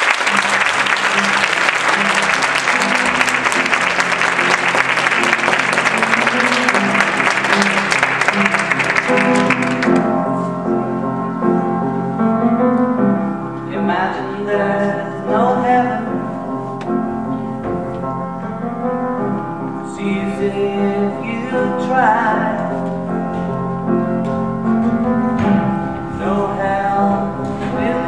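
Audience applause for about the first ten seconds, stopping abruptly, with piano music already playing underneath. After that the piano plays on alone, and a voice sings over it in a few short phrases.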